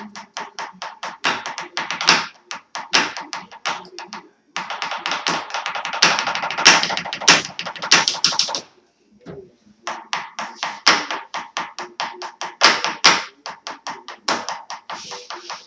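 Felt-tip markers drummed fast on a wooden tabletop as makeshift drumsticks: quick, uneven taps, with a break of about a second some nine seconds in.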